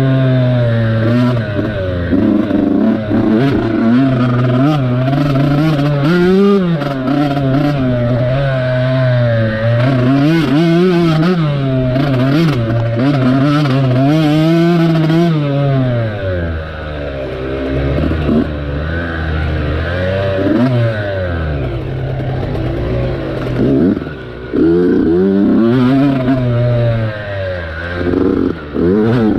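A dirt bike engine running under the rider as it is ridden over a dirt track, its pitch rising and falling with the throttle. About halfway through it drops to a low note for several seconds, then revs back up, with a couple of short dips near the end.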